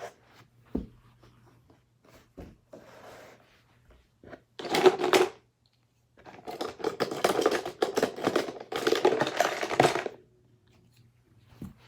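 Plastic Hot Wheels track pieces being handled: a few sharp clicks, then clattering in a short burst about five seconds in and a longer run from about six to ten seconds.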